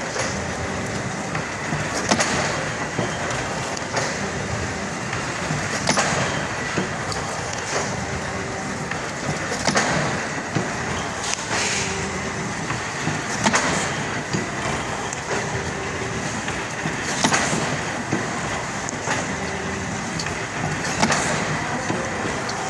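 A 1400 x 1000 mm clamshell platen die-cutting machine for cardboard cartons is running with a steady mechanical clatter. A sharp stamping stroke comes about every four seconds.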